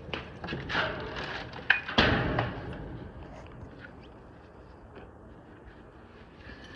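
Knocks and clatter of objects being handled, with a sharp knock and then a heavy thump about two seconds in that fades away.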